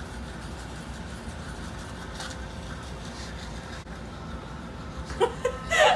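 A steady low hum, then a person's voice briefly about five seconds in.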